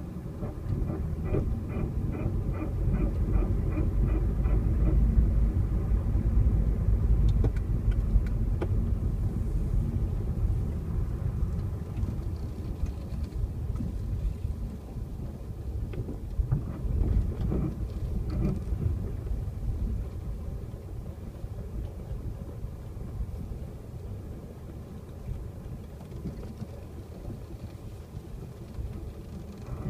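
A car driving, with a steady low rumble that swells in the middle and eases toward the end. For the first few seconds a fast, even ticking comes through, about three ticks a second, then stops.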